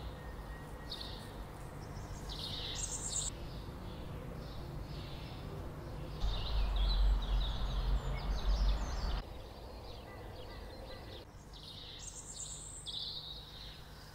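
Outdoor ambience: small birds chirping in short bursts over a steady low rumble, which grows louder for about three seconds in the middle.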